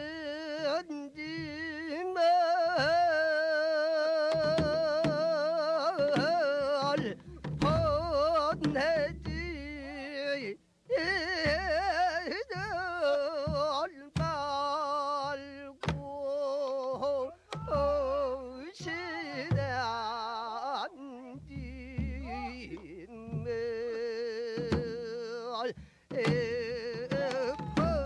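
Jindo ssitgimgut shaman song: a woman's voice singing a slow lament with a heavy wavering vibrato, over low strokes of a janggu hourglass drum in a long six-beat rhythm. It is the mourning song of a rite to console the souls of the drowned.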